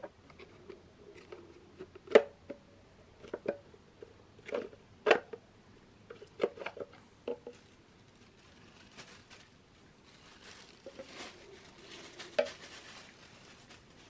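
Plastic dust bin of a cordless cyclonic stick vacuum being knocked and handled while dirt is shaken out into a plastic bag and the filter is pulled out: a series of sharp plastic clicks and knocks, about a dozen, with light bag rustling.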